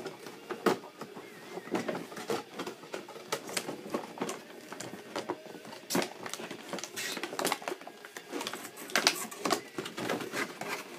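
Plastic toy packaging and figure accessories being handled: irregular clicks, crinkles and light knocks, with a few sharper knocks.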